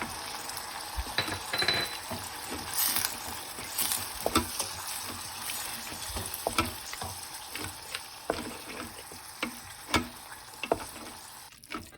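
Hot ghee tempering with cashews sizzling after asafoetida water has been spooned in, while a spoon stirs and clicks against the pan. The sizzle dies down near the end.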